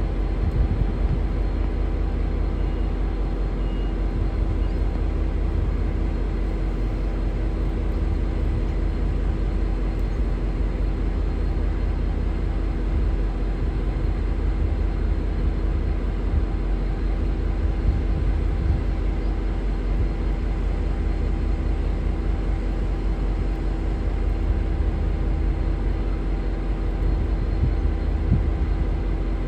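V/Line N class diesel locomotive idling at the platform: a steady low rumble with a constant hum.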